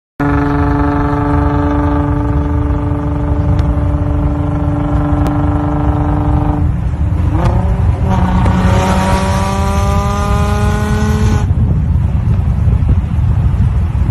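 Nissan GT-R engine running hard at steady revs over a deep road and wind rumble. About seven seconds in, the note breaks off and drops. It then climbs slowly for a few seconds with a hiss over it, and stops about eleven seconds in, leaving only the rumble.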